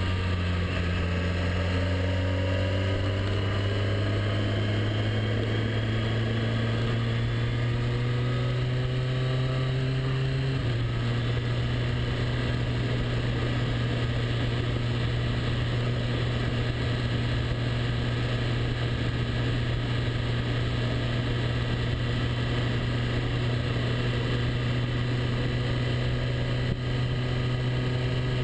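Motorcycle engine running under throttle, its note climbing slowly for about ten seconds, then changing in a sudden step and holding steady as the bike cruises.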